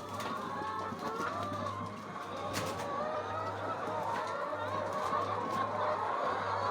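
A flock of chickens clucking and calling, many short calls overlapping one another, over a low hum that comes and goes.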